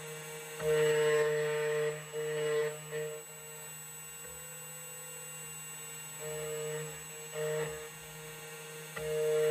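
2M2 Tank CNC key cutting machine's cutter motor running with a steady whine that swells louder several times as it cuts a Toyota TOY48 key blank.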